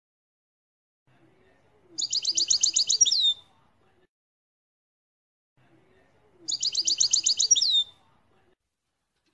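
European goldfinch song in the Levantine ('Shami') style. The phrase is a fast trill of about a dozen repeated high notes ending in a falling slur. It comes twice, identically, about two seconds in and again near the end.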